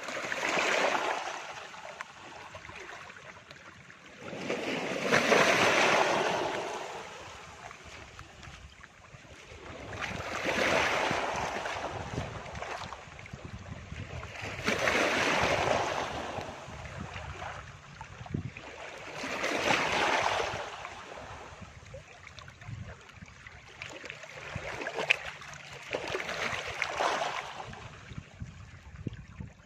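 Calm sea waves breaking on a beach: a wash of surf that swells and fades about every five seconds.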